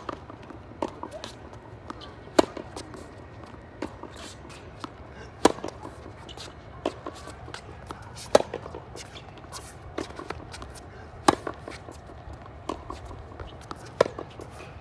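Tennis rally on a hard court: a serve struck right at the start, then sharp pops of ball on racket strings and ball bounces about every one and a half seconds, the loudest, nearest hits about every three seconds.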